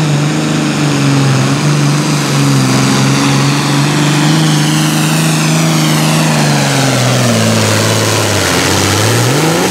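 Turbocharged diesel engine of a John Deere Super Farm pulling tractor running flat out under load as it drags a weight-transfer sled, with a high turbo whine sliding down in pitch. From about six seconds in the engine note sinks as the sled pulls it down at the end of the pass, then rises again briefly near the end.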